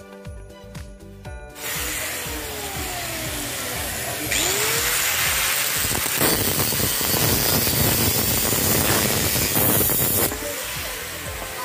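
Angle grinder with a cutting disc cutting through the steel wall of an old LPG gas cylinder, starting about a second and a half in and growing louder through the middle of the cut before easing off near the end.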